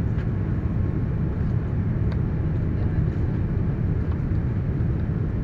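Steady low rumble of airflow and engines inside the cabin of a Boeing 787-9 airliner descending on approach, heard from a window seat.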